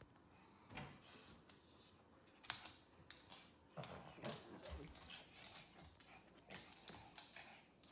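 Near silence broken by faint, scattered clicks and scuffs of a small dog's claws on a wooden floor as it moves about and jumps up.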